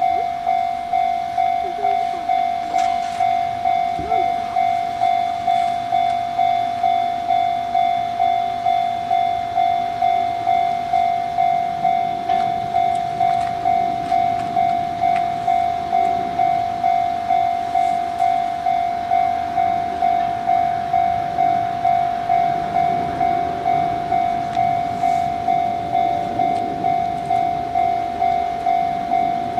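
Japanese railway level-crossing alarm ringing: a loud, single-pitched electronic bell tone repeating evenly about one and a half times a second, the crossing's warning that a train is due.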